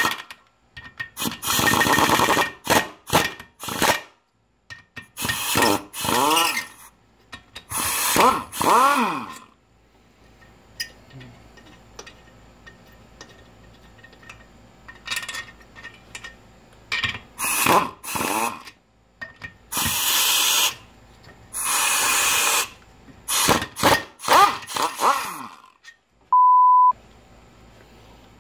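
Ingersoll Rand 2235TiMAX air impact wrench run in repeated short bursts, its pitch rising and falling as it spins up and down, loosening and spinning out the cylinder-head bolts of a Briggs & Stratton flathead engine. A short steady beep sounds near the end.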